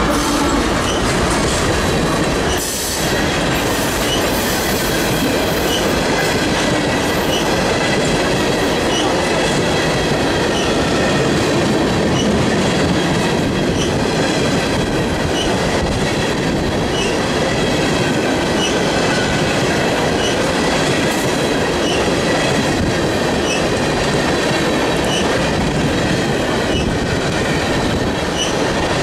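Freight train's covered hoppers and tank cars rolling past close by: a steady rumble of wheels on rail with regular clicks over the rail joints and a faint high wheel squeal.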